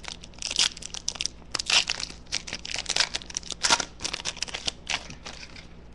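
Foil wrapper of a 2012 Panini Prizm football card pack crinkling and tearing as it is ripped open and handled, a steady run of irregular crackles.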